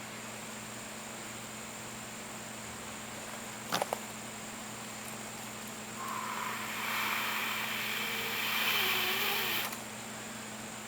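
A person blowing a long breath of air, a hiss that starts about six seconds in, lasts close to four seconds and cuts off, over a steady low hum. A single short click comes near four seconds.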